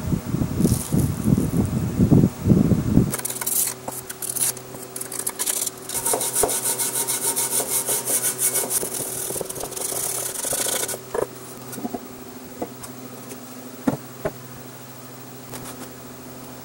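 Metal scraper rasping softened paint off a cast-iron machine base in quick repeated strokes. It opens with a few seconds of heavy, irregular knocks. After about eleven seconds the scraping stops, leaving a steady low hum and a few scattered clicks.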